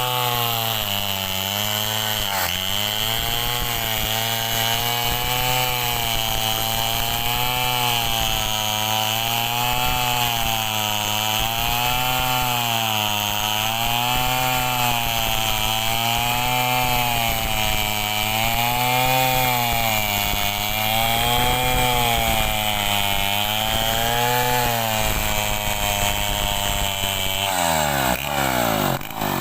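Assembled chainsaw with a Stihl 070 two-stroke engine cutting mahogany under full throttle, its pitch rising and falling about every two seconds as the load on the chain changes. Near the end the engine drops back toward idle.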